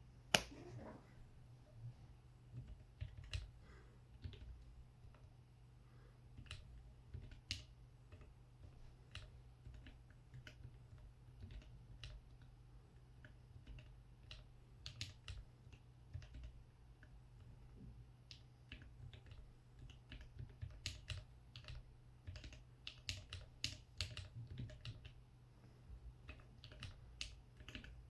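Keystrokes on a mechanical numpad with Holy Polar Panda tactile switches and Infinikey Laffy Taffy keycaps: irregular key clacks, sparse at first and coming quicker and denser in the second half.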